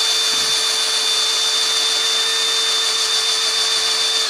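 18V cordless drill (a Makita replica) in low gear, boring a 26 mm auger bit into a block of wood: the motor runs with a steady whine under load, and at the low speed it keeps turning through the wood without stalling. It stops abruptly at the very end.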